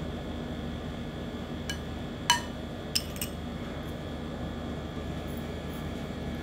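Steel spoon clinking against a glass dish a few times while spreading jelly, the loudest clink a little past two seconds in, over a steady fan-like hum.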